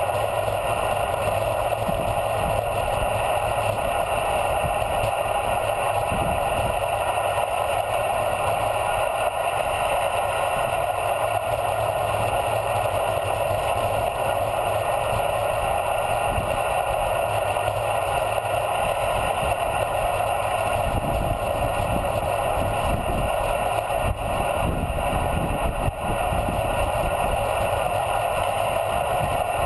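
Steady rush of wind over a bicycle's handlebar-mounted camera, with tyre noise from the asphalt and low, uneven buffeting, as the bike rolls down the road at speed.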